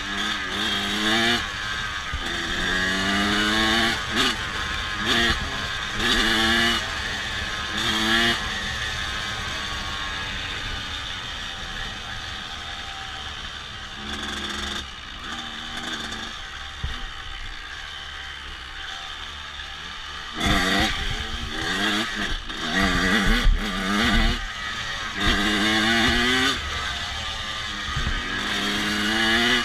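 Honda CRF250F single-cylinder four-stroke engine running and being revved in short repeated throttle blips, each a quick rise in pitch. Between the two bursts of revving it runs more steadily and quietly.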